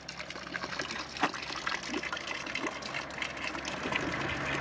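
A thin stream of water falling from a metal spout into a stone basin, splashing steadily, with one sharper splash about a second in.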